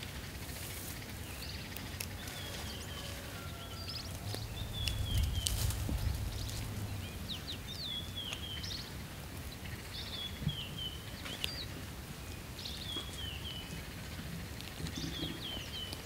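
Quiet woodland ambience with a bird repeating a short, high, downward-sliding chirp every second or two. A low rumble swells for a few seconds about four seconds in.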